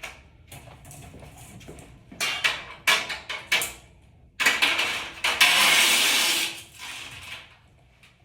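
Hard parts clattering and knocking several times as they are handled, then a loud scraping, rustling noise lasting about two seconds.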